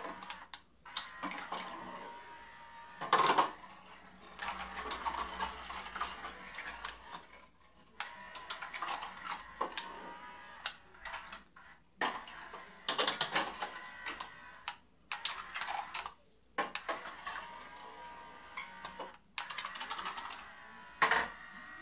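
Tiny coreless motors from a mini quadcopter spinning small propellers in a 3D-printed toy boat, whining and churning the bathtub water in runs of a few seconds as the throttle is worked, with short pauses between runs. There are a few sharp knocks, one right at the start and one near the end.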